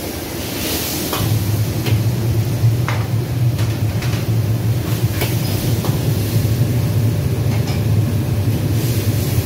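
Steady low roar of commercial kitchen gas wok burners and hood extraction, growing louder about a second in, with scattered sharp clinks and knocks of metal utensils and pans.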